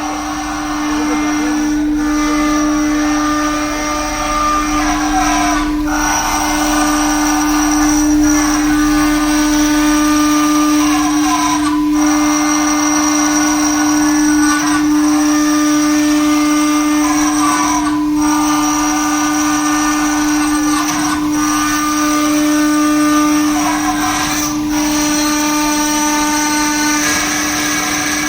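CNC stone router spindle running at a steady high whine while cutting, with the cutting noise over it changing every few seconds.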